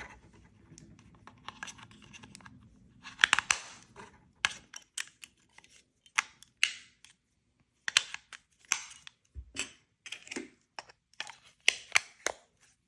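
AA batteries being fitted into the plastic battery compartment of a wireless doorbell chime: soft scraping at first, then a run of irregular sharp plastic clicks and taps as the cells and cover are pressed into place.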